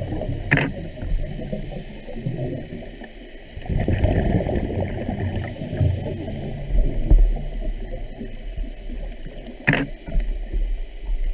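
Muffled underwater rumble and gurgling of water moving past a camera housing on a drift dive, swelling and easing, with two sharp clicks, one about half a second in and one near the end.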